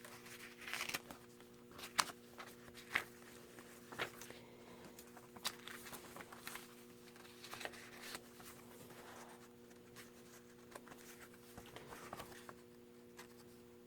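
Handmade paper junk journal being handled: faint rustling of card-stock pages and scattered light taps and clicks as pages and fold-outs are turned, over a faint steady hum.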